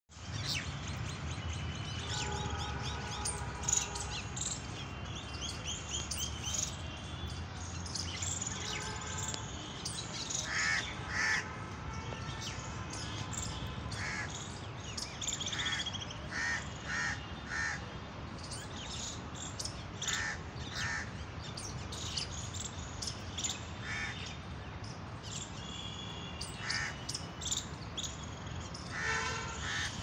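Rose-ringed parakeets calling in a tree: shrill, harsh screeches, often in quick runs of three or four, mixed with other chirps, over a steady low rumble.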